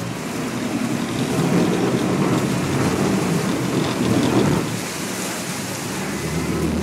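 Loud rushing, rumbling noise on the deck of a sport-fishing boat at sea, a mix of engine, water and wind. It swells for a few seconds and eases about four and a half seconds in, leaving a low steady hum.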